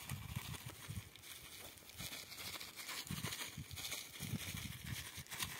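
A plastic bag crinkling as oxalic acid crystals are shaken out of it over sandy soil, with irregular low thuds of handling.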